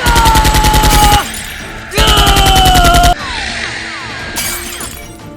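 Two bursts of rapid automatic gunfire sound effect, each about a second long, the shots coming many times a second with a slowly falling whine over them. Quieter sweeping sounds and a short hiss follow near the end, over background music.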